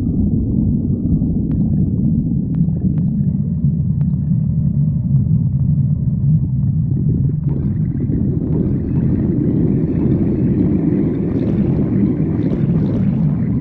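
Stomach growling: a steady low rumble that, about halfway through, swells into a louder, higher gurgling growl.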